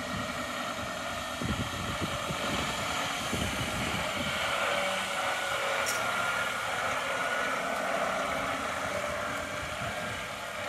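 Diesel engine of a 2009 Scania P 280 refuse truck running steadily as the truck drives slowly past at low speed.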